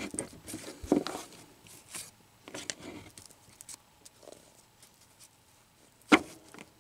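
Cardboard baseball cards being flipped through by hand, giving scattered soft papery clicks and slides, with one louder sharp tap about six seconds in.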